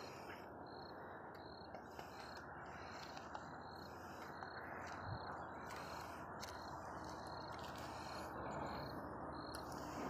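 Faint outdoor ambience: a steady low hiss with a short, high chirp repeating evenly, typical of an insect calling.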